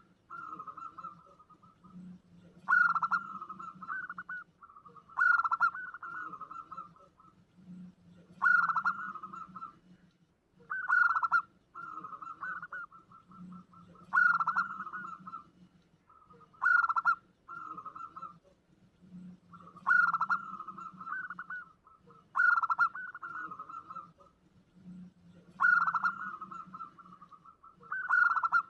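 Zebra dove (perkutut) singing its repeated lure song. About every three seconds comes a sharp note followed by a rapid, even trill of short cooing notes.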